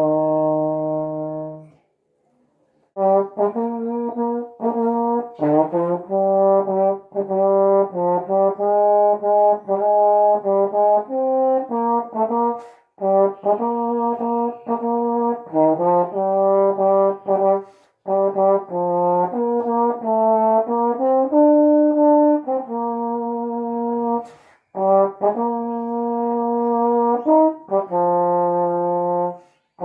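Solo trombone playing a hymn melody, one note at a time in legato phrases separated by short breathing pauses, with a longer pause of about a second near the start.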